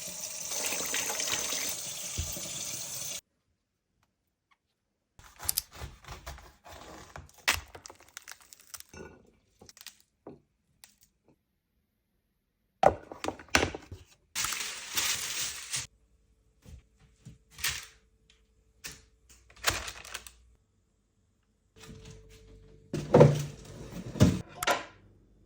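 Tap water running into a sink for about three seconds, cut off abruptly. Then come scattered kitchen handling sounds: knocks, clatters and a few short rushing bursts.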